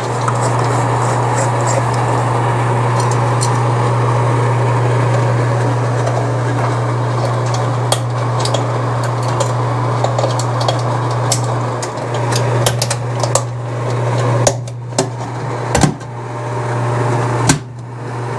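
Newly installed NuTone bathroom exhaust fan motor running with a steady low hum and a rush of air, while the plastic light fixture and cover are handled and fitted onto the ceiling unit, making clicks and knocks that come more often in the second half.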